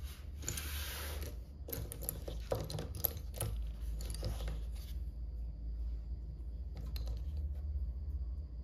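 Small plastic Lego pieces tipped onto a mat and pushed around by hand: a short rattle, then a run of light clicks and clatter for the first five seconds or so. After that it is quieter handling, with a single click near seven seconds, all over a steady low hum.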